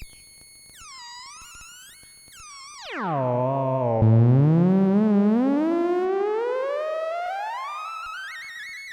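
AliExpress theremin's electronic tone with many overtones. It makes a few short high glides, then about three seconds in swoops down to a low buzz. It climbs slowly back up over the next five seconds, rising in small steps near the end.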